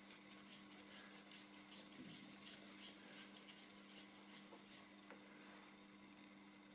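Faint, quick ticking and scraping, a few ticks a second, from a screwdriver undoing small screws on a Volvo PV544 wiper motor's gearbox plate, dying away after about five seconds, over a faint steady hum.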